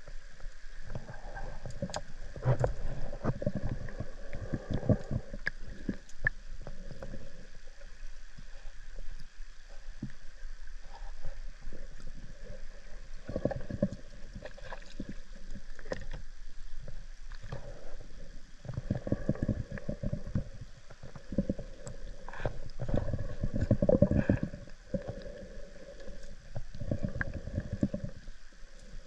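Underwater drone running in a river: its thruster motors give a faint steady whir, under irregular low rumbling surges and scattered clicks of moving water.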